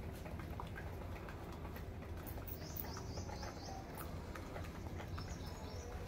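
Pigeons and doves pecking seed grains off a concrete floor: many quick, sharp beak taps over a low steady rumble. A bird gives a quick run of high chirps about two and a half seconds in and again near the end.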